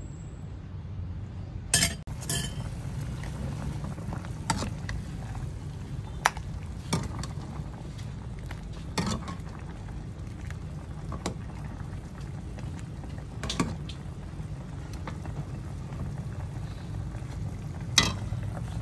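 Steel ladle clinking against an aluminium pot and a ceramic bowl as green vegetable soup is scooped and poured out, with sharp clinks every second or two. Under them runs the steady low sound of the pot simmering on a portable gas stove.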